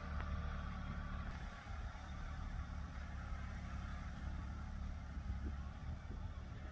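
Wind rumbling on a phone microphone outdoors, with a faint rustle of leafy plants being handled. There are a few soft clicks, a couple of them near the end, as greens are cut by hand.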